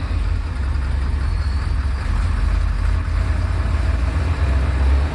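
Porsche 928S V8 engine running steadily, a constant low drone.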